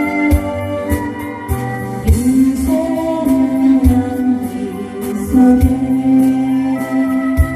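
Song accompaniment: a melody of held, gliding notes over a steady drum beat.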